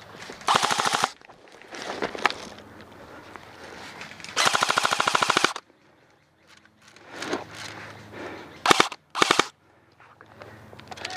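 Airsoft gun firing rapid full-auto bursts: a short burst near the start, a longer one of about a second in the middle, and two quick short bursts near the end.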